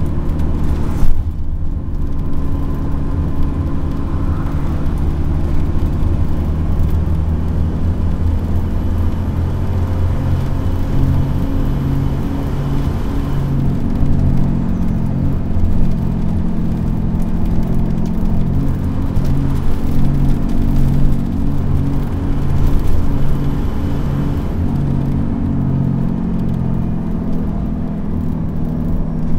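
Dennis Trident double-decker bus's diesel engine running hard under load, heard from inside the bus as a steady low drone. A regular throb of about one beat a second runs through it from about ten seconds in, fading out near the end, and there is a brief loud knock about a second in.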